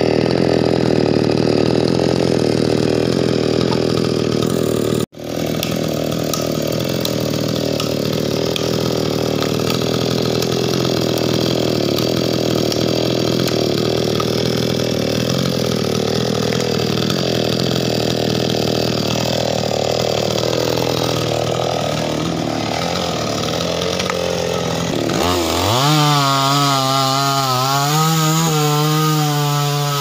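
Two-stroke chainsaw running steadily, then, after the sound drops out for an instant about five seconds in, cutting into a tree trunk, its engine note wavering under load. Near the end the engine pitch climbs sharply and stays high.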